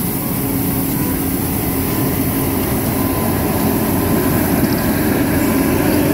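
MFH 5500 compact street sweeper working, its engine and sweeping gear running steadily with a low hum over an even hiss as the rotating side brushes scrub the road.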